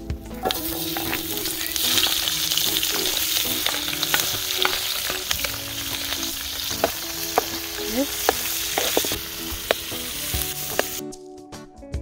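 Food frying in hot oil, a steady sizzle with scattered sharp clicks of a utensil stirring. The sizzle cuts off suddenly near the end.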